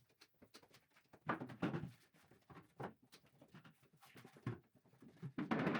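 Scattered knocks, taps and scrapes of hand work on wood and brick, with a longer scraping stretch about a second and a half in and busier handling noise near the end.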